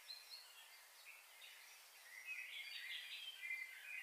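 Faint birdsong: short chirps and calls, busier in the second half.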